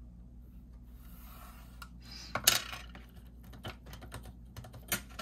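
Faint scraping and light clicks of a pencil and a steel ruler handled on a cutting mat, with one sharp clack about two and a half seconds in, then a few smaller taps as the ruler is shifted.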